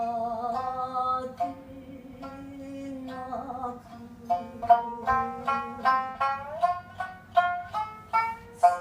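Shamisen being plucked, with a woman singing long, slightly wavering notes over it. About halfway through, the shamisen plays a quick run of sharp plucked notes, roughly three a second.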